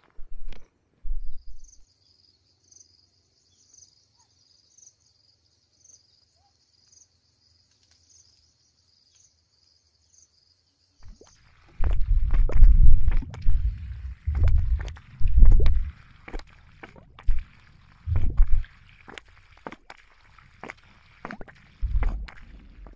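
Spring water pouring from the open end of a plastic pipe onto soil, splashing and gurgling in loud irregular bursts that start about halfway through. Before that, a faint high chirp repeats about twice a second.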